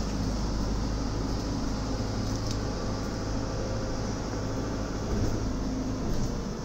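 City bus engine running and road noise heard from inside the cabin as the bus drives slowly through town: a steady low drone.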